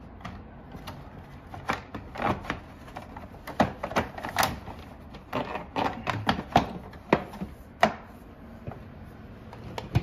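Irregular plastic clicks and knocks as the front cover of a National wall-mounted ventilation fan is fitted back over the propeller and pressed into place.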